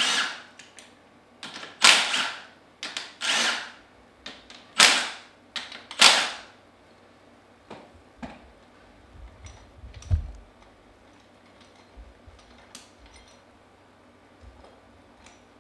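Cordless impact wrench with a half-inch socket loosening bolts on a Comet P40 diaphragm pump, in five short bursts over the first six seconds. After that come light clicks of metal pump parts being handled on the bench, and a dull thump about ten seconds in.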